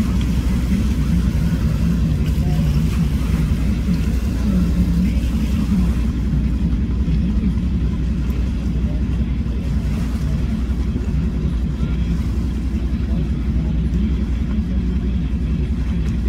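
Steady low engine rumble: a pickup truck idling close by, with a small boat's outboard motor running slowly as the boat is driven onto its trailer.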